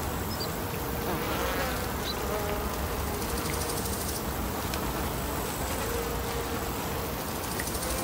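Outdoor morning ambience: an insect buzzing on and off over a steady low rumble of distant traffic, with a few short high bird chirps.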